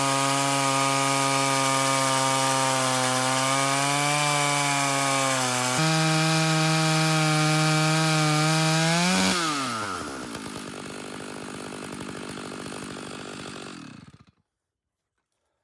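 Vintage Stihl 056 two-stroke chainsaw running at high revs under load while ripping a chestnut log in an Alaskan chainsaw mill. About six seconds in the engine note steps up in pitch as the load eases, typical of finishing the cut. About nine seconds in the throttle is released and the revs fall to a lower, quieter idle, then the sound stops abruptly near the end.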